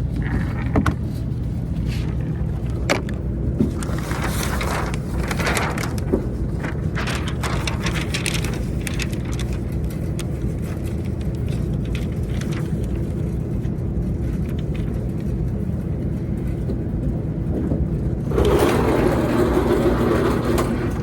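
Steady low drone of a car's engine and road noise heard inside the cabin, with a few sharp clicks in the first few seconds. A louder rushing noise comes in near the end.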